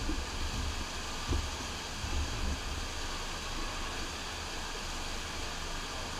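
Steady rushing of the FlowRider sheet-wave machine's pumped water sheet pouring up the ride surface, with a low rumble underneath and a brief thump about a second in.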